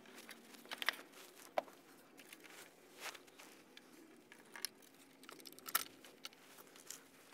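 Faint, scattered clicks and light taps of hands working at the aviary's wooden top beam while hanging an old window on hooks.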